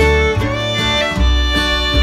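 Background instrumental music: a fiddle tune over guitar and a low bass line.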